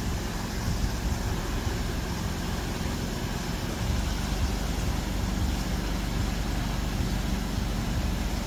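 An engine running steadily with a low hum, slightly louder about four seconds in.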